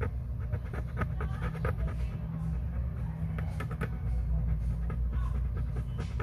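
Wooden toothpick scraping and scratching over the wet face of a coin in short, irregular strokes, picking off tarnish and grime, over a steady low hum.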